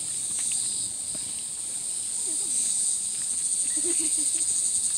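Steady, high-pitched insect chorus from the trees, which turns into a rapid pulsing and grows louder about three seconds in.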